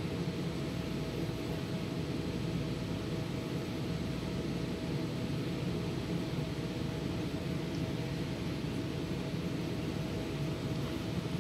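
A steady low mechanical hum with a faint constant tone above it, unchanging throughout.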